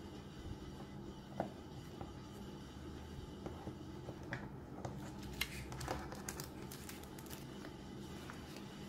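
Light clicks, taps and paper rustles from tweezers and paper stickers being handled on a desk, with a sharper tick about a second and a half in and a busier run of clicks in the second half, over a steady low hum.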